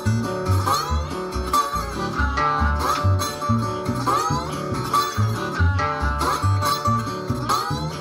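Acoustic delta blues played as an instrumental passage: slide guitar on a resonator guitar in open D, gliding between notes, over harmonica and a washtub bass plucking low notes about twice a second.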